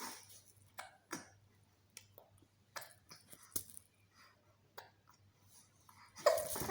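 Baby hiccuping: short, sharp little hiccups at uneven gaps of roughly a second, with a louder burst of sound near the end.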